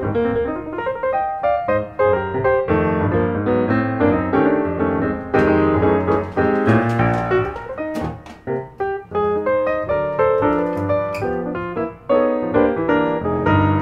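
Background piano music, a steady run of light notes.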